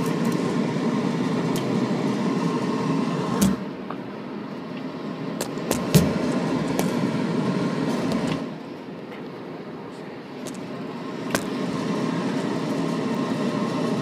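York gas furnace running, heard from inside its cabinet: a steady rushing hum from the blower and burner. The level dips twice as the microphone moves, and there are a few sharp knocks.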